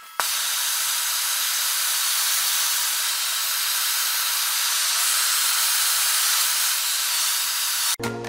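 Handheld gas torch burning with a steady hiss as its flame is played on the steel hull seam; it starts suddenly just after the beginning. Near the end it gives way to background music.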